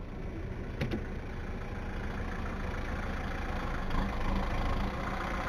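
A vehicle engine running steadily, mixed with road noise, with a brief click a little under a second in.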